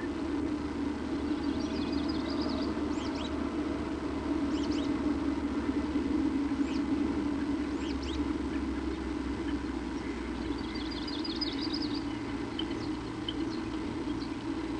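Bird chirps: short high calls scattered throughout, with a quick run of rapid chirps about two seconds in and another about eleven seconds in, over a steady low hum.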